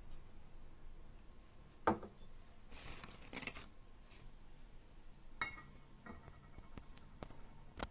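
Faint handling noises: a few scattered sharp clicks and knocks, with a rustle lasting about a second near the middle.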